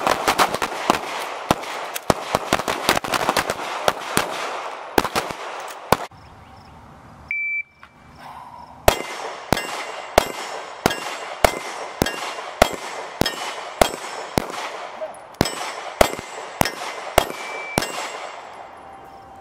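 Several pistols firing together in rapid, overlapping shots for about six seconds. After a pause and a short electronic beep, a single handgun fires steadily at about two shots a second, each shot followed by the ring of a hit steel target.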